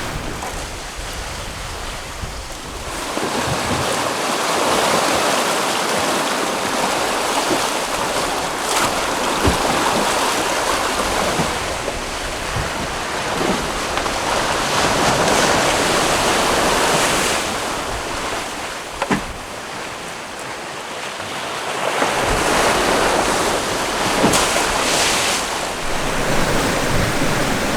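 Open-ocean wash of waves and water rushing around a sailing catamaran under way, with wind buffeting the microphone. The rush swells and eases in long surges, with a few faint knocks.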